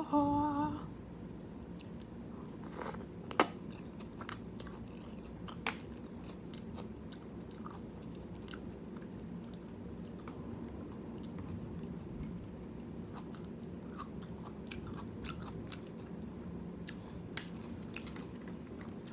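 Close-miked chewing of jjajangmyeon black bean noodles, with many small wet mouth clicks and one sharper click about three and a half seconds in, over a steady background of thunderstorm rain.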